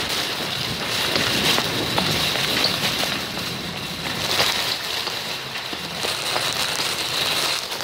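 Shopping cart rolling fast on a store floor, heard from inside its wire basket: a steady rattling rumble from the casters and basket, with scattered small knocks.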